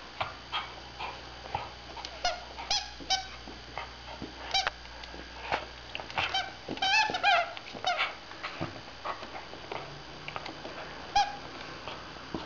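A dog chewing a rubber squeaky toy, making a run of short, irregular squeaks. The squeaks come thickest a little past the middle, with one last squeak near the end.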